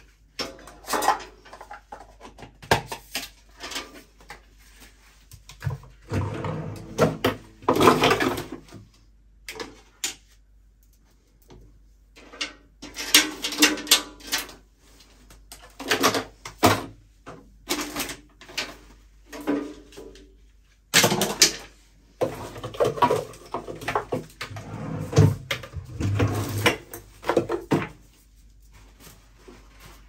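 Bathroom items being picked up, moved and set down around a sink: irregular bursts of knocks, clinks and rustling with short pauses between.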